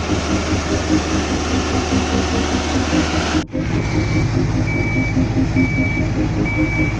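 Heavy construction machine's diesel engine running with a throbbing low pulse. After a sudden cut about halfway through, another machine's engine runs with its reversing alarm beeping a little faster than once a second.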